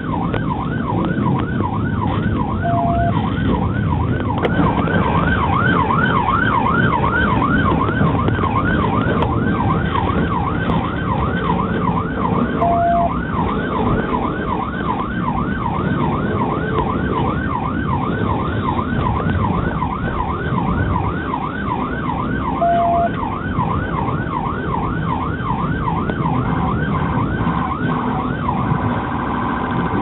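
Police car siren wailing in rapid yelp mode, about three sweeps a second, changing pattern briefly near the end, heard from inside the pursuing patrol car over a steady low road rumble. Three short beeps sound about ten seconds apart.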